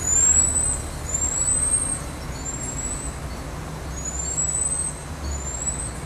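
Marmoset whistling, five thin high-pitched calls that each rise slightly, over a steady low rumble.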